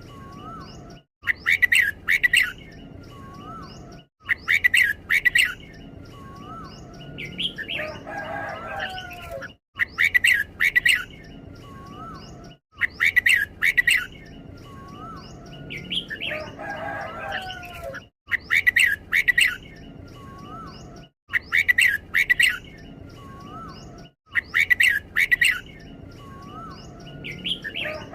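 Red-whiskered bulbul singing short, bright whistled phrases repeated every two to three seconds, with soft rising notes in between and a longer, fuller song phrase about a quarter of the way in and again past the middle. This is the doubled-phrase singing style.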